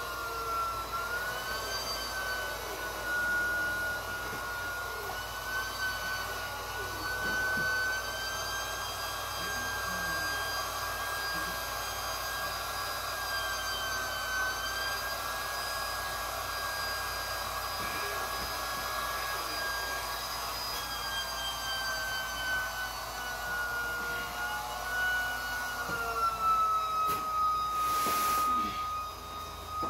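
Small portable electric air pump running steadily with a high whine, inflating an inflatable kayak; the pitch wavers slightly and settles a little lower near the end. A brief handling noise comes near the end.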